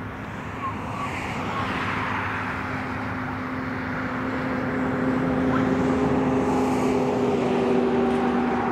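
Boeing 737 MAX 8 jet on final approach with its CFM LEAP-1B engines at approach power: a steady drone with a few held humming tones that grows gradually louder as the aircraft nears.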